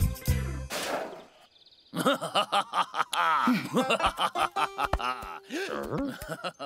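Animated cartoon characters vocalising without words: mumbled gibberish, grunts and snickering chuckles that slide up and down in pitch, starting about two seconds in after a short music phrase ends.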